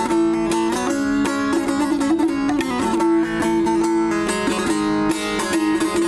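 Background music played on a plucked string instrument: a quick stream of picked notes over a steady held pitch.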